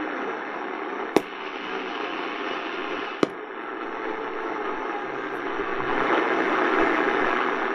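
Radio Shack DX-390 portable radio's speaker giving a steady medium wave hiss and static between weak stations, with two sharp clicks about a second and three seconds in. A faint hint of music lies under the noise near the end.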